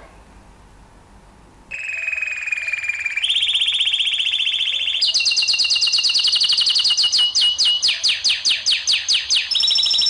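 Domestic canary singing a long rolling song: fast trills, each held on one pitch and then jumping to a higher one, slowing into separate falling notes before another quick trill. The song starts about two seconds in.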